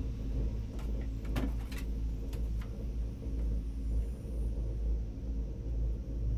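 Steady low rumble inside a moving ropeway gondola cabin, with a few light clicks of the cabin between about one and three seconds in.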